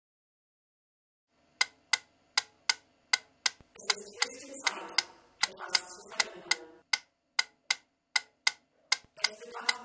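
Mechanical pendulum metronome ticking at a steady, fairly fast beat, about two and a half ticks a second, starting about a second and a half in. From about four seconds in, a murky layer of other sound swells in and out between the ticks.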